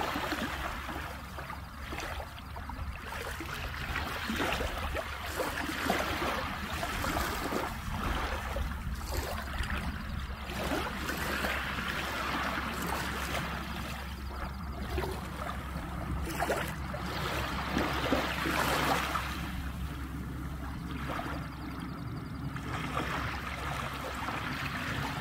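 Small waves lapping and trickling against the rocky shore, rising and falling in irregular surges, over a steady low rumble.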